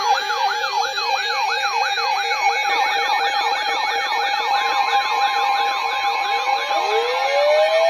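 Several emergency sirens sounding at once: a fast yelp sweeping up and down about three times a second over a steady tone, a rapid two-note warble that stops about three seconds in, and two slow rising wails climbing in near the end.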